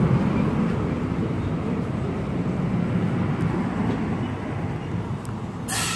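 NJ Transit double-deck passenger train rolling past a station platform: a steady rumble of the cars on the rails that slowly eases as the rear cab car goes by. A short hiss comes just before the end.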